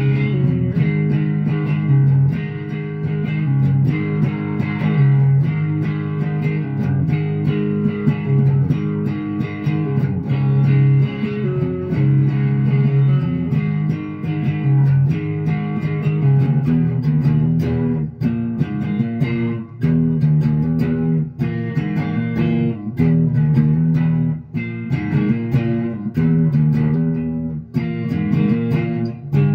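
Les Paul-style electric guitar playing a run of chords, changing every second or so with short breaks between them.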